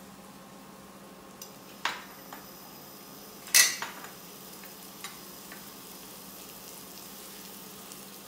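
Skewered chicken gilafi kebabs shallow frying in a pan with a steady light sizzle. A few sharp clinks against the pan come through it, the loudest two about two and three and a half seconds in.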